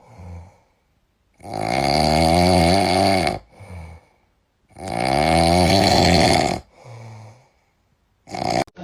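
A pet snoring loudly: two long snores about three seconds apart, each followed by a shorter, softer breath.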